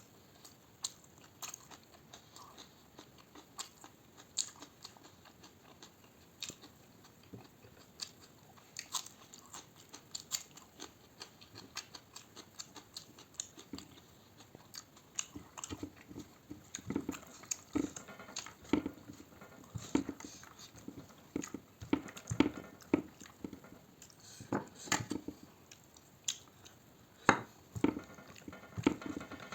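A person eating close to the microphone: chewing and biting food, with many small wet clicks and smacks that come thicker and fuller in the second half.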